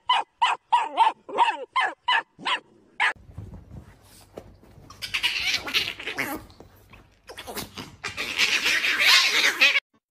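A dog barking in rapid short yaps, about three a second, for the first two and a half seconds. Then, from about three seconds in, come stretches of loud noisy rustling.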